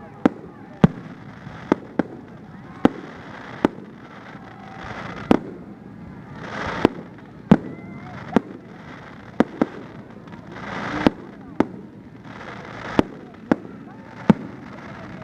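Fireworks display: sharp bangs of bursting shells about once a second, some coming in quick pairs, with rushing hiss from launches and crackle swelling between them.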